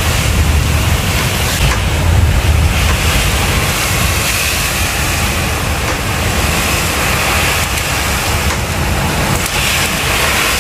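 Heavy storm rain and strong wind: a steady loud rush, with a low rumble strongest in the first few seconds.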